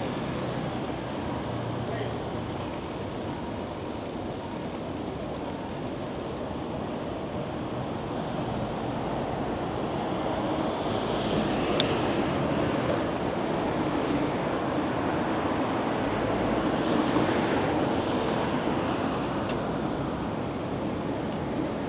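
Steady rumble of city traffic, growing louder in the second half, with a single sharp click near the middle.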